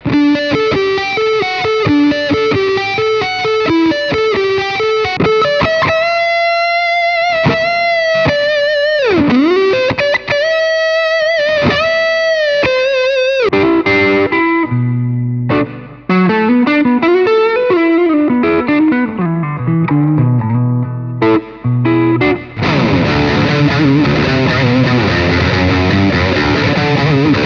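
Electric guitar with humbucker pickups played through a Caline Jaguar Classic High Gain Distortion pedal. It opens with fast single-note lead lines, then long held notes with vibrato, one of which swoops down in pitch and back up about nine seconds in. Low riffing follows, and from about 22 seconds there are thick distorted chords.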